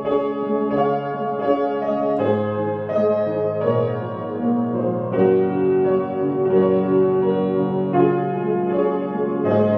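Piano music: sustained chords with melody notes on top, changing about every second.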